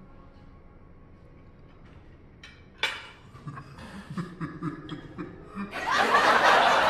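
Laughter: a sharp click about three seconds in, then short bursts of snickering that break into loud laughing near the end.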